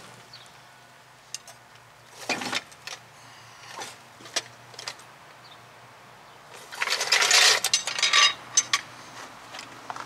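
Steel floor jack being lowered and pulled out from under the car: scattered metallic clicks and clanks, then a louder burst of clanking and scraping about seven seconds in as the jack and its handle drag over gravel.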